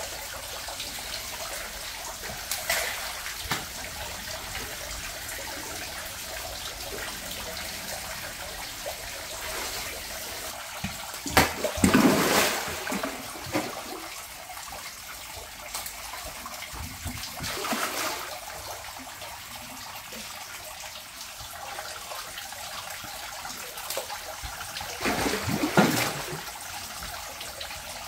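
Steady running water from the tank's filtration flow, broken by four splashes as big predatory fish such as arapaima and alligator gar strike at fish pieces at the surface. The biggest splashes come about midway and near the end.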